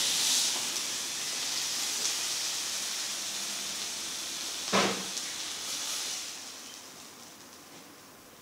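Meat skewers frying in an oiled pan, a steady sizzle that dies away near the end as the last pieces are lifted out. One sharp knock about five seconds in.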